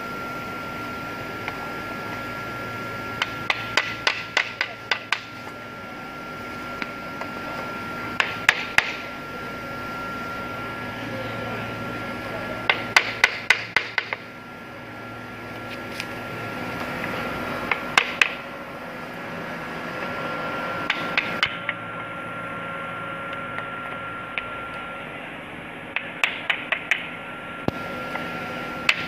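Hammer striking a wooden tapping block held against the edge of engineered parquet flooring panels, knocking them together at the joints. The taps come in quick runs of two to seven sharp knocks, with pauses of a few seconds between runs.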